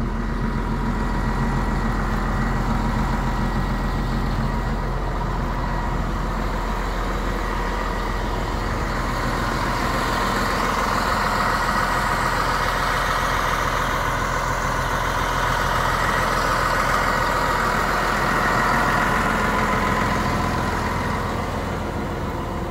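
Caterpillar D6R crawler dozer's six-cylinder diesel engine idling steadily, a continuous low hum with a faint whine.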